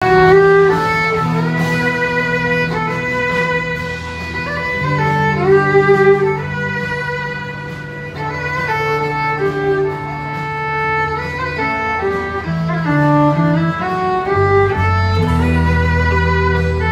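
Fiddle playing a slow country melody of long held notes with slides between them, over acoustic guitar accompaniment.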